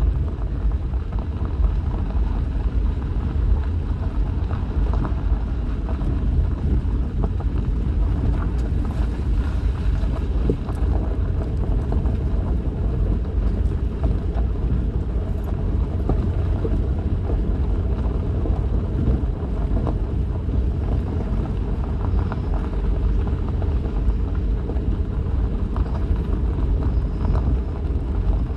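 Vehicle driving along a bumpy unpaved back road: a steady low engine and tyre rumble with many small rattles and knocks from the rough surface.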